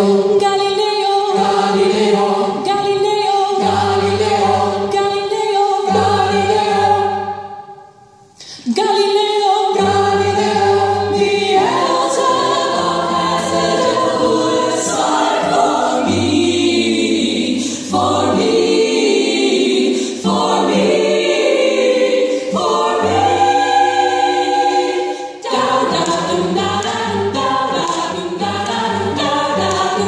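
Women's vocal ensemble singing in close harmony into microphones, with a cello holding low notes beneath. The sound drops briefly about eight seconds in, then the voices come back in.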